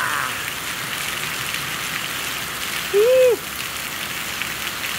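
Heavy downpour of a summer cloudburst: hard, steady rain hissing down, with streams of runoff from the roof edge splashing onto rocks and gravel. About three seconds in, a short voiced exclamation rises and falls over the rain.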